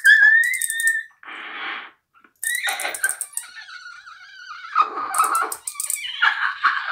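High, squeaky whistle-like tones that bend slightly in pitch, alternating with short breathy hissing blows and small clicks, all made with the mouth held close against a handheld microphone.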